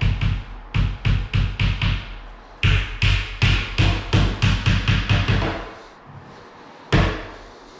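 Hammer tapping small nails into a flat-pack cabinet panel: two quick runs of light taps, about four a second, then one harder single blow near the end.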